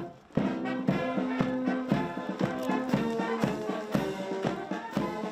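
Brass band playing a march with a steady beat.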